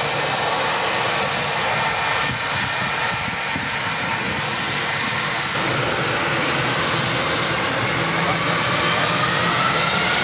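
Airbus A321 twin jet engines running with a steady whine as the airliner taxis onto the runway. Near the end the whine starts to rise in pitch as the engines begin to spool up.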